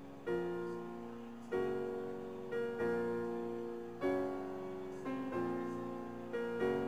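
Slow piano music: chords struck about once a second, each left to ring and fade before the next.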